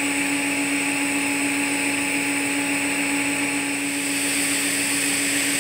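TIG welding arc burning on a titanium pipe root joint: a steady buzzing hum with a high hiss.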